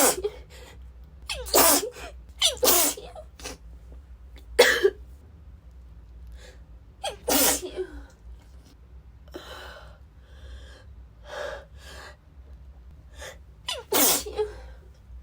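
A woman with a cold sneezing repeatedly, about six sharp sneezes in a row, the last few spaced further apart, with quieter breaths between them.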